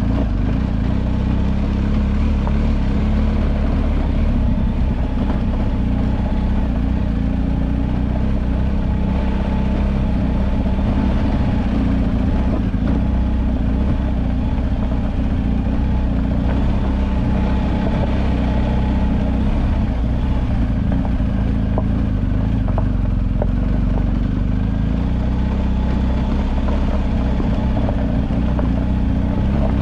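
BMW GS motorcycle's boxer-twin engine running steadily while riding, at an even loudness throughout.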